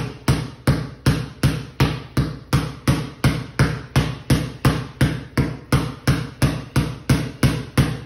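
Basketball dribbled on a concrete floor: a steady, even bounce, a little under three times a second.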